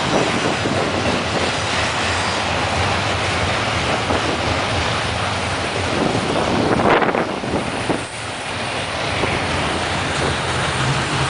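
BNSF double-stack intermodal freight train rolling past, a steady rush and rattle of wheels on rail. A faint high wheel squeal fades in the first couple of seconds, and there is a brief louder surge about seven seconds in.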